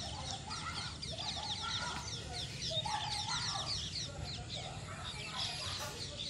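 A dense chorus of birds chirping, many quick falling notes overlapping, with lower calls mixed in.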